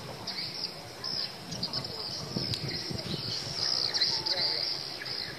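Birds chirping in many short, high calls, with insects calling.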